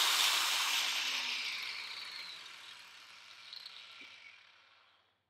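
DEWALT DWE4246 angle grinder spinning down after its mains power is cut at the wall socket. Its whine falls in pitch and fades over about four and a half seconds until it stops.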